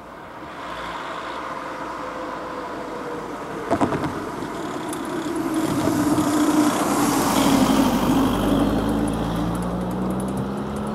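A small van drives over the level crossing, its wheels knocking sharply over the rails about four seconds in, then passes close with its engine note dropping as it goes. Near the end, the mechanical crossing barriers start lowering with a fast ratchet clicking.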